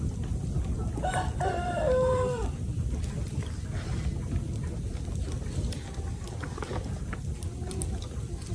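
A rooster crows once, about a second in: a single call of about a second and a half that steps down in pitch toward its end, over a steady low rumble.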